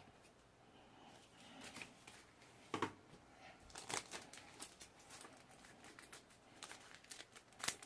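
Faint handling of Pokémon trading cards: scattered soft rustles and light clicks, with a sharper click about three seconds in and another near the end.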